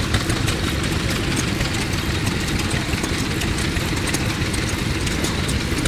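Yoshida Type D 2.5 hp stationary farm engine running steadily, belt-driving a straw rope making machine, with a rapid even beat and light ticking and clatter from the machine's gears.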